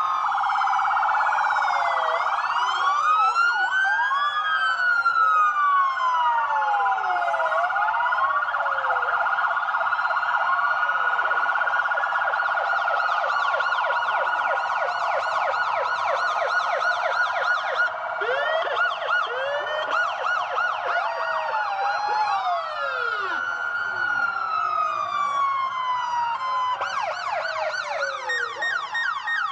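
Home-made police siren sounding continuously, cycling through siren patterns: slow rising-and-falling wails, faster yelping sweeps, and a rapid repeating pulse near the end, all over a steady high tone.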